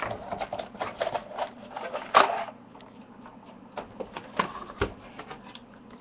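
Sizzix Big Shot die-cutting machine being hand-cranked, a fast run of clicks as the cutting plates pass through the rollers, with a louder clack about two seconds in. After that it goes quieter, with a few scattered knocks of the plates being handled.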